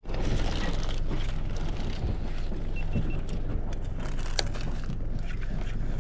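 Boat's motor running steadily under a low rumble, with water and hull noise around it.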